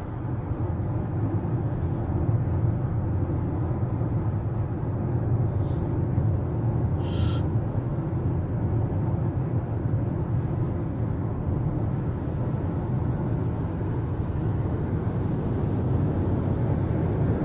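Steady road and engine noise of a car cruising on a highway, heard inside the cabin, with two brief faint higher-pitched sounds about six and seven seconds in.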